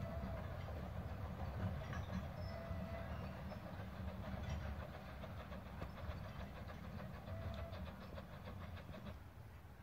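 Two-foot gauge steam train running along the line, a low rumble with regular wheel clicks, fading steadily as it moves away.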